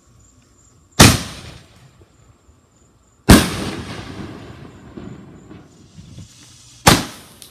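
Fireworks going off: three loud bangs a few seconds apart, the second followed by a long fading rumble.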